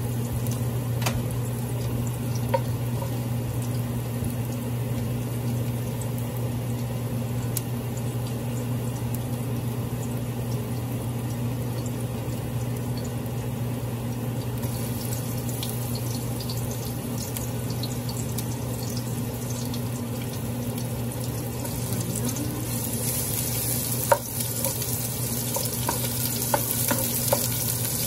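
Minced garlic sizzling in olive oil in a metal pot, over a steady low hum. Toward the end the sizzle grows louder as sliced onions go in, and a wooden spatula knocks and scrapes against the pot several times.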